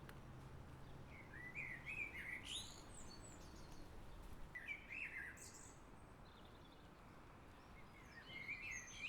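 Eurasian blackbird singing: short warbled phrases with a high squeaky flourish at the end, one about a second in, another around five seconds, and a third starting near the end.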